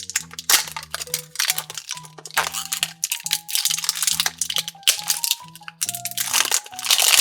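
Crinkly toy blind-bag packaging being crumpled and torn open in a rapid, irregular crackle that is densest near the end, over steady background music.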